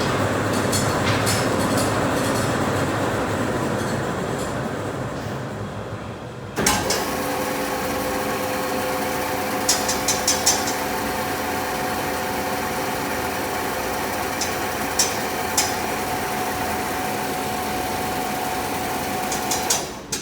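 Aronson GE500 welding positioner's electric drive motor and gearbox running. The first run dies away about six seconds in. A second starts abruptly with a steady gear whine and a few clicks, then stops just before the end.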